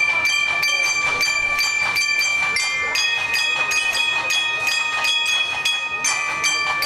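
Children's marching band playing: long held high melody notes, changing pitch a few times, over steady percussion strokes about four a second.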